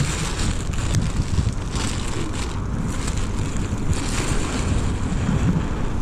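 Wind buffeting the microphone: a steady low rumble, with a few faint short rustles over it.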